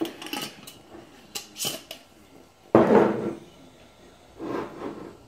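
Glass mason jars and a metal screw lid handled on a countertop: a series of clinks and knocks, the loudest about three seconds in.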